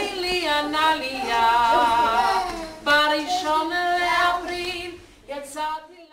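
A voice singing a melody, the pitch wavering on held notes. It fades near the end and then cuts off abruptly.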